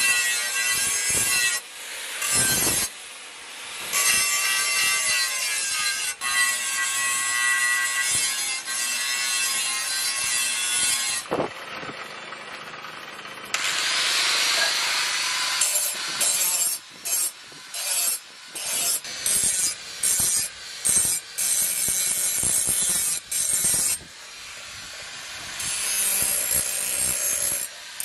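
Handheld angle grinder with an abrasive disc grinding rust off a steel knife blade: a steady motor whine under the grinding hiss of the disc on the metal. It drops away briefly about eleven seconds in, then comes back broken into many short bursts as the disc touches the blade and lifts off.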